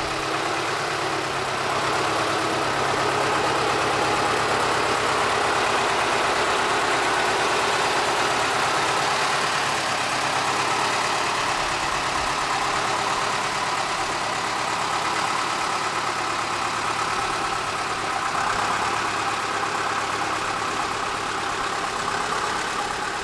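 Small diesel locomotive's engine running steadily as it drives slowly along the track.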